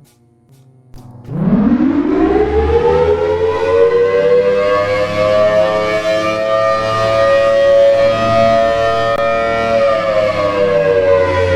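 Mechanical warning siren starting up about a second in, its pitch rising steeply and then levelling off into a steady loud tone. Near the end the pitch begins to fall.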